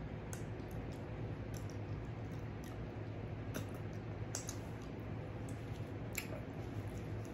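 Close-up eating sounds: scattered soft, wet mouth clicks and smacks as fingers are licked clean of soup, over a low steady hum.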